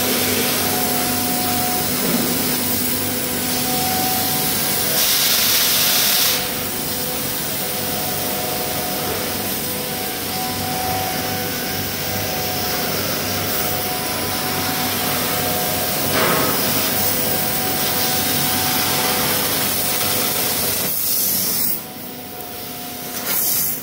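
1500 W fiber laser cutting machine cutting 2 mm mild steel with compressed air as the assist gas: a steady hiss of the air jet at the cutting head, with a few faint steady tones under it. The hiss swells for about a second around five seconds in, drops away a couple of seconds before the end and returns briefly.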